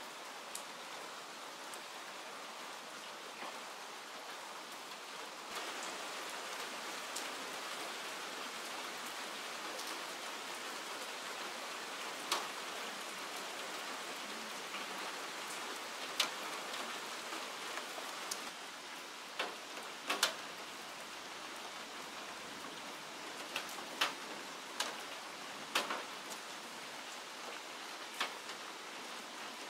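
Steady hiss with scattered sharp taps and clicks, mostly in the second half, a second or more apart.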